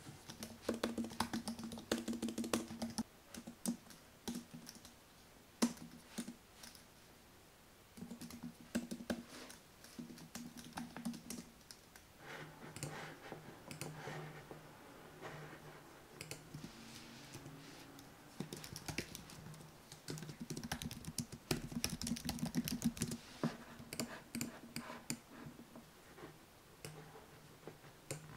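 Typing on the iMac's low-profile Magic Keyboard: irregular runs of quick key clicks with short pauses between them.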